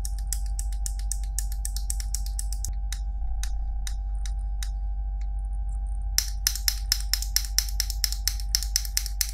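Runs of sharp, quick plastic clicks from mechanical keyboard switches being worked, dense at first, sparse in the middle and dense again about six seconds in, over a steady low hum.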